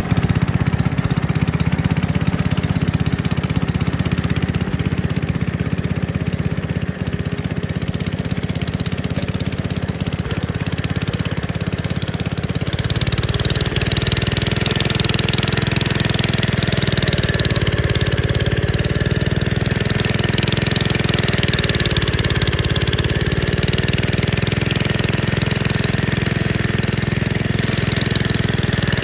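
Gravely Commercial 10A walk-behind tractor engine running steadily, driving a Dogeater snowblower. About 13 seconds in the sound turns brighter, and after that a fainter whine wavers up and down in pitch over the steady drone.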